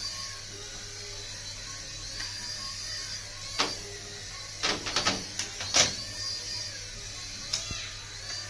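Small geared electric motor of a battery-powered toy whining up and down in short runs. Sharp plastic clicks and clatters come about three and a half seconds in, in a cluster around five to six seconds, and once more near the end.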